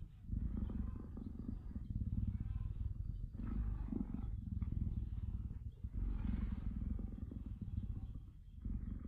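Cheetah purring while its head is stroked: a low, fast-pulsing rumble that runs on in stretches of about a second, breaking briefly with each change of breath.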